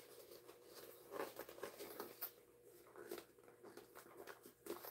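Faint rustling and soft scuffs of a fabric tote bag being handled, its corners worked out by hand.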